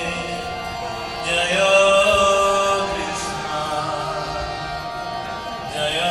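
Devotional chanting with music: slow sung phrases with long held notes.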